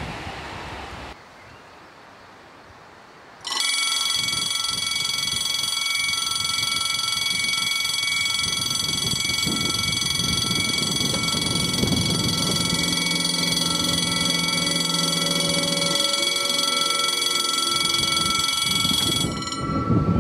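The last of a passing train's noise fades in the first second. About three and a half seconds in, a loud, steady alarm-like tone made of several high pitches starts abruptly, with no beat or rhythm; lower tones join it in the second half. It cuts off suddenly near the end.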